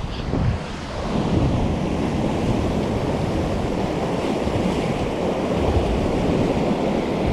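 Sea surf washing against shore rocks, with wind buffeting the microphone.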